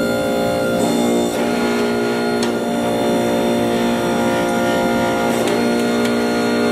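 Electric motor and hydraulic pump of a converted Bliss No. 62 punch press, now a hydraulic forging press, running as a steady hum made of several even tones. It is kind of loud from vibration that is not yet isolated, with a few faint clicks.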